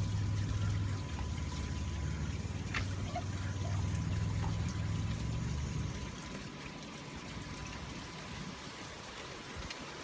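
Pool water running out of a vacuum siphon hose in a steady trickling pour as the pool is siphon-vacuumed. A low hum underneath fades out about six seconds in.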